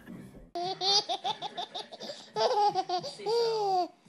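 A baby laughing hard in quick repeated giggles, then one long drawn-out laugh near the end.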